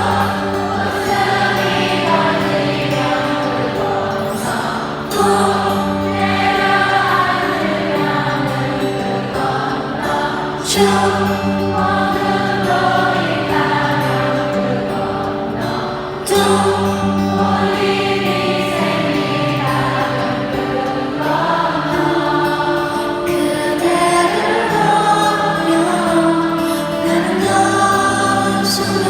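A slow ballad sung live in concert, with a vocal line over held, sustained chords.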